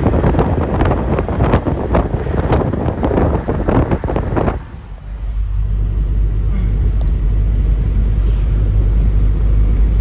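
Gusty wind buffeting the microphone. About halfway through it stops abruptly and gives way to the steady low rumble of a car driving.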